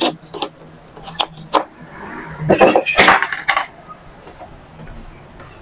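Clicks and clattering from an Epson L3210 ink-tank printer being handled and started on a colour copy: a few sharp clicks, then a louder burst of clattering about two and a half seconds in, over a low steady hum.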